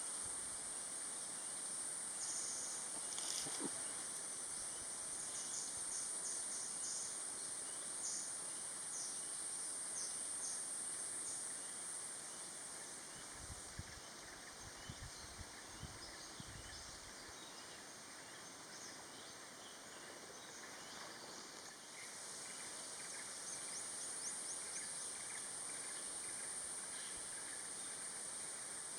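Forest ambience: a steady, high-pitched insect drone that stops about twelve seconds in and starts again about ten seconds later. Scattered short bird chirps run throughout, and a few low thuds fall in the quieter middle stretch.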